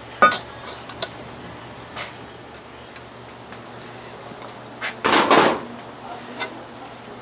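A few light metal clicks as a lid lifter hooks a cast-iron Dutch oven. About five seconds in comes a short clatter of several knocks as the heavy cast-iron Dutch oven is set down on a stainless steel table.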